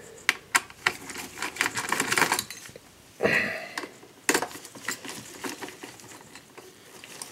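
Screwdriver loosening the mounting screws of a socket 775 CPU heatsink-fan: scattered small metallic clicks and clinks, with a short scrape just after three seconds in and a sharp click a second later.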